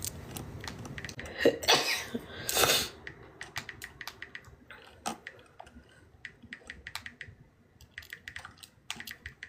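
A woman sneezing twice in quick succession, about a second and a half and two and a half seconds in, as part of a sneezing fit. Afterwards come scattered faint clicks and sniffs.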